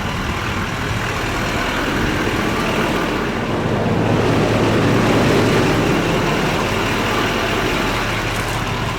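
Jet ski engine running with a steady drone and rushing noise, growing louder towards the middle and easing slightly near the end.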